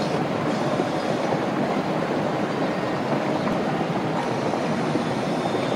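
Boiling geothermal hot spring vent giving off steam: a steady rushing noise of boiling water and venting steam.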